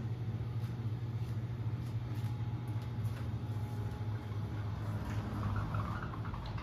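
Electric oven toaster running with a steady low hum.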